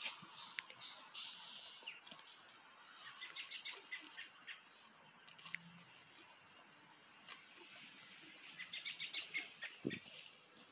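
Arabian horse grazing close up, its teeth tearing and snipping grass in quick runs of crisp, faint clicks.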